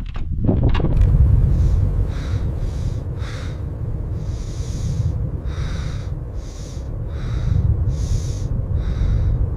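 Blizzard wind with a steady low rumble, overlaid by a regular series of short hissing or crunching strokes, roughly two a second.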